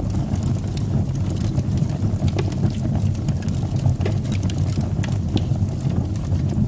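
Wood fire burning in a fireplace: a steady low rumble of the flames with frequent small, sharp crackles and pops.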